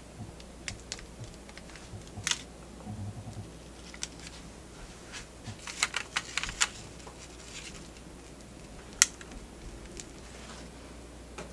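Light clicks and taps of a spoon and spatula spreading strawberry jam and buttercream on a sponge cake layer. The clicks are scattered, with a quick cluster about six seconds in and the sharpest single click about nine seconds in.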